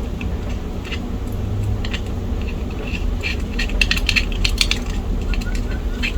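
Small metallic clicks and clinks of a screwdriver, a small screw and metal laptop parts being handled while a screw is driven in during reassembly, a cluster of quick clicks about three to five seconds in.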